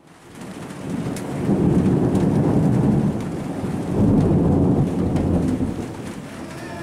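Rolling thunder: a long low rumble that builds over the first second and a half, then a second peal that swells about four seconds in and slowly fades, the thunder of a storm before the rain.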